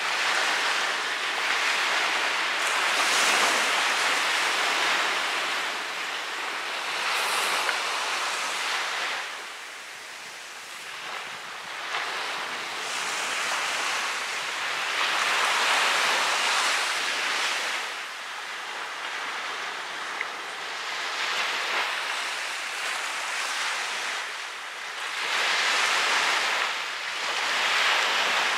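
Ocean surf breaking and washing ashore, swelling and easing every few seconds.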